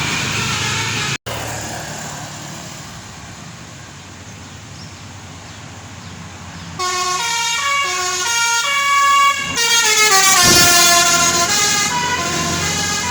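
A tour bus's musical 'telolet' air horns playing a tune of stepped, held notes, starting loudly about seven seconds in, with a falling glide partway through. Before it, after an abrupt cut near the start, there is only the rumble of engines and traffic.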